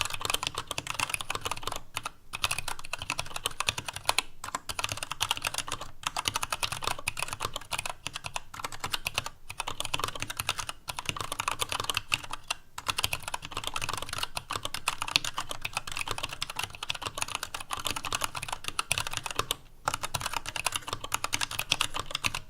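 Fast, continuous typing on a TADA68 mechanical keyboard with Gateron Brown tactile switches, a stainless steel plate and PBT Cherry-profile keycaps, in a hollow-sounding ABS case. Brief pauses come every second or two, and the typing stops at the very end. A low thud from the desk runs under the key strikes.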